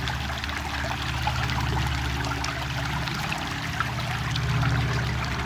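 Shallow river water trickling and running steadily over rocks at low summer flow.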